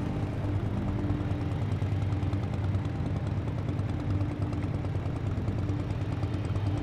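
Motorcycle engines running steadily at low revs, a low hum.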